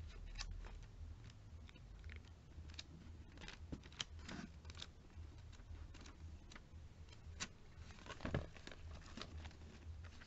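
Glossy pages of a paper catalogue being turned by hand: faint rustles and soft flicks, with a few sharper page flicks around four and eight seconds in.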